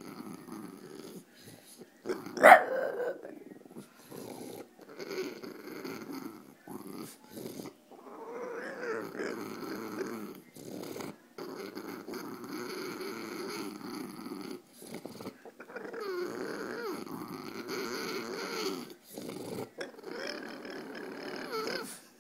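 French bulldog making drawn-out grumbling, growly "talking" noises that bend up and down in pitch, in stretches of one to three seconds with short pauses between. One short, much louder sound comes about two and a half seconds in.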